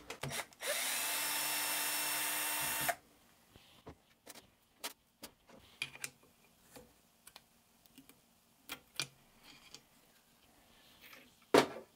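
A power tool's motor runs steadily for about two seconds near the start. Then scattered light clicks and taps of a screwdriver and screws on an engine's aluminium crankcase follow, with one sharper click near the end.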